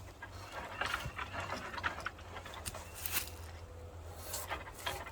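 Faint, irregular clicks and scrapes of wooden poles being handled and fitted for a platform shelter, over a low steady outdoor rumble.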